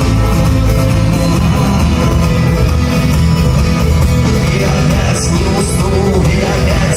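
Loud rock music with singing and guitar.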